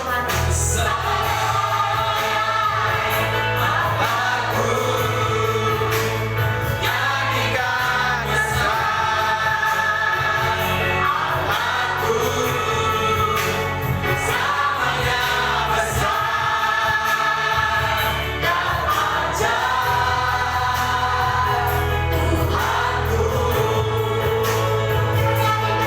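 Congregational worship singing: voices sing a gospel song together over a band with steady bass, in phrases of a few seconds each.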